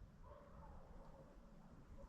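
Near silence: faint forest ambience, with a faint thin tone for about a second near the start.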